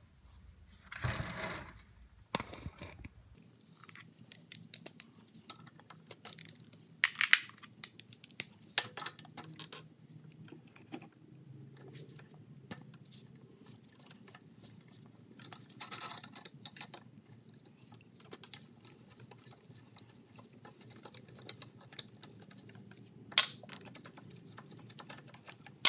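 Irregular clicks, taps and short scrapes of hand-tool work on a Briggs & Stratton lawn mower engine as the two carburetor mounting bolts are undone, with one sharper click near the end.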